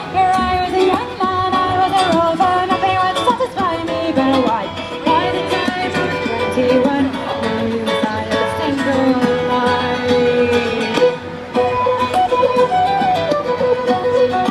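Live Irish folk band playing, with fiddle over strummed guitar carrying a sliding melody and held notes.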